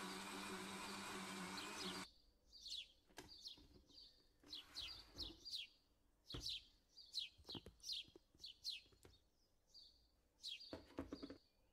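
Kenwood blender running with a steady hum and cutting off about two seconds in. After that a small bird chirps repeatedly, with a few light knocks as the blender jug's lid is handled.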